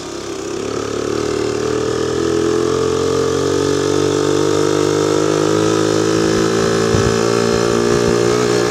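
Honda PC50 moped's small single-cylinder four-stroke engine running under way, its note rising over the first couple of seconds and then held steady. A few brief low thumps come about seven seconds in.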